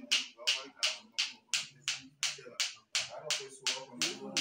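A steady rhythm of sharp percussive strikes, about three a second, with low voices beneath.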